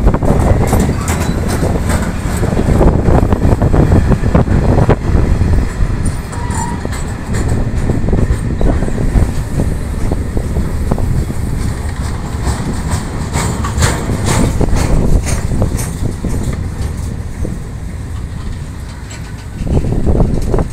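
Freight train of steel-coil wagons rolling past along the platform: a steady heavy rumble with repeated wheel clicks over the rail joints. Strong wind buffets the microphone.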